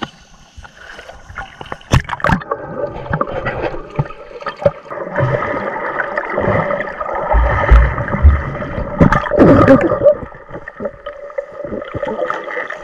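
Water heard from underwater during a snorkel dive: muffled rushing and bubbling, with a few sharp knocks about two seconds in and low thumps a little past the middle, loudest around eight to ten seconds in.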